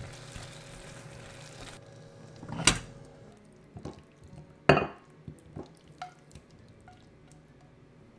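A silicone spatula stirring a thick creamy gratin mixture in a pot, then a bowl knocked and scraped against an oven dish as the mixture is spooned in: two sharp clinks about two seconds apart, the second the loudest, followed by a few lighter knocks.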